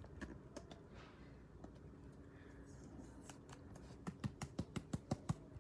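Trading cards and rigid clear plastic card holders being handled, faint clicks and rustles with a quick run of sharp plastic clicks about four seconds in.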